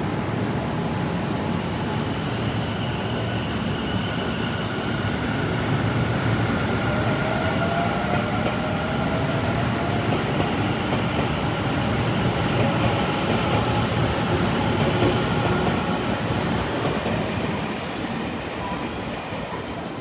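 Tobu 9000 series electric train running, heard from on board: the rumble of wheels on rail under whining traction-motor and chopper-control tones, one of which rises in pitch around the middle as the train gathers speed.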